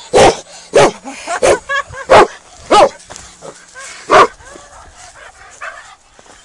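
A dog barking repeatedly: about six loud barks in quick succession, with a brief high whine among them, then the barking stops about four seconds in.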